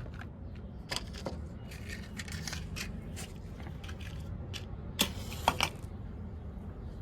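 Scattered clicks and short rustling scrapes of objects being handled, over a low steady hum, with two sharper clicks about five seconds in.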